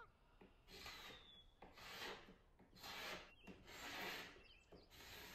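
Carbide hand scraper drawn over painted wood in five faint strokes about a second apart, stripping old paint and varnish.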